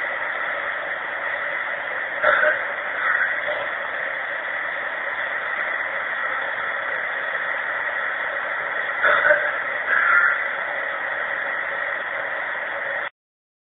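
Steady hiss of a low-quality recording with two pairs of brief throat-clearing sounds, the first about two seconds in and the second about nine seconds in, which the recordist attributes to a neighbour. The recording cuts off suddenly near the end.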